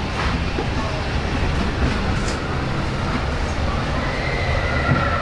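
Walt Disney World Railroad train rolling along the track, heard from a passenger car: a steady low rumble of wheels and running noise. A thin, steady high tone comes in near the end.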